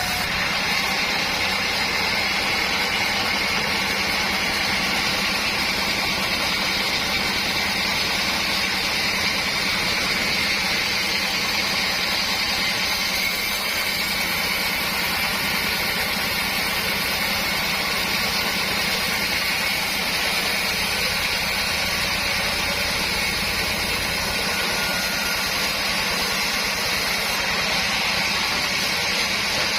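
Sawmill's engine-driven board saw running steadily and evenly, with no break or change in pitch.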